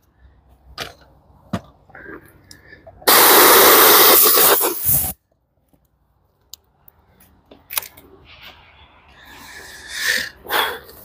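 A loud, steady hiss of compressed air from an air-hose nozzle, lasting about two seconds and starting and stopping abruptly. A few light knocks and clicks of handling come before it.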